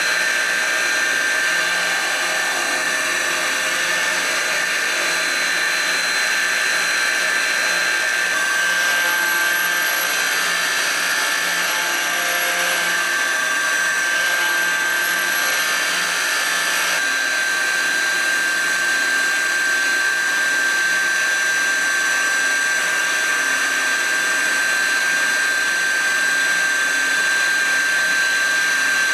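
Live milling spindle of a Hwacheon C1 CNC turning center cutting 6061 aluminium under coolant: a steady high machining whine over the hiss of coolant and chips. The tone drops slightly about eight seconds in.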